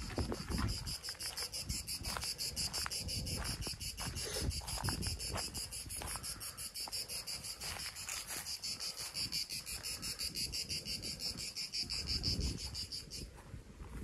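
Singing insects making a high, rapidly pulsing buzz that cuts off suddenly near the end, over irregular soft footsteps on dry grass and stones.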